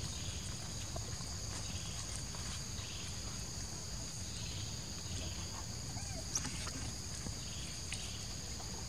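Steady chorus of forest insects buzzing at two high pitches, over a low rumble, with a few faint short chirps.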